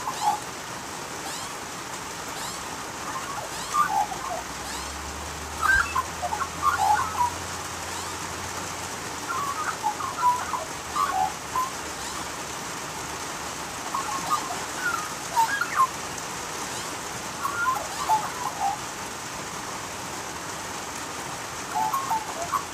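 Australian magpies carolling in bursts of short, gliding notes every few seconds, over a steady hiss of falling rain.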